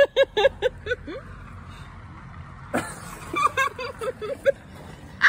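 A woman giggling in quick, high-pitched bursts, twice, with a single knock between them.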